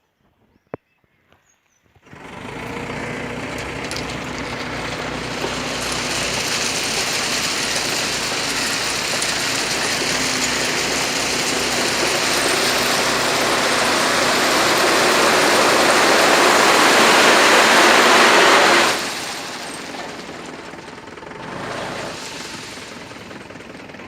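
A tipper truck unloading stone: its engine runs under a loud rushing clatter of stone sliding out, which starts about two seconds in, builds steadily, and stops abruptly after about seventeen seconds, leaving the engine running more quietly.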